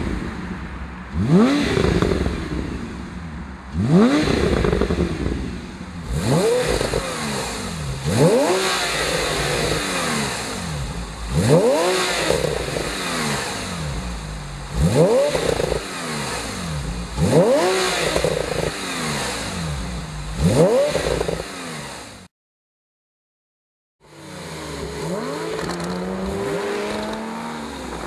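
Porsche 991 Carrera S flat-six running through a Fabspeed performance exhaust, revved in about eight sharp blips, each climbing quickly and falling back. After these there is a brief dead silence, then a steadier engine note.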